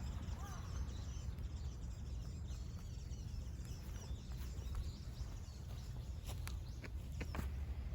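Outdoor ambience: a steady low rumble with faint wild bird chirps, and a few sharp clicks near the end.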